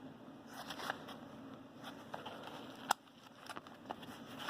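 A fabric EDC pouch being handled: soft rustling with scattered small clicks and one sharp click about three seconds in.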